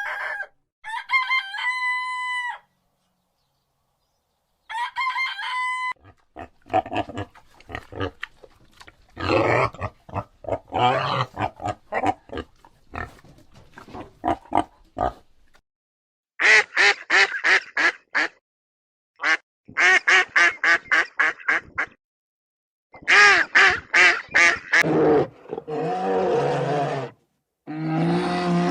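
A run of separate animal calls with short silent gaps between them: a long drawn-out call near the start, a stretch of irregular calls, then trains of rapid repeated calls.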